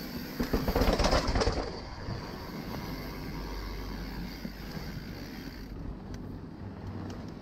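YT Capra mountain bike clattering and rattling as it rides down a short flight of stone steps, a loud burst of quick knocks lasting just over a second. After that, a steady, quieter rolling noise of the tyres on paving.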